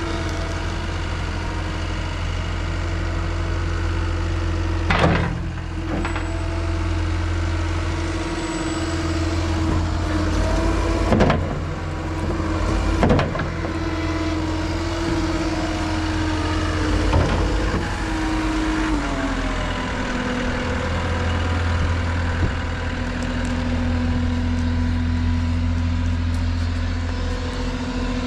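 Deere 333G tracked skid steer running, its diesel engine droning steadily with a steady whine over it that steps down in pitch about two-thirds of the way through. Four short sharp clanks from the machine come at intervals.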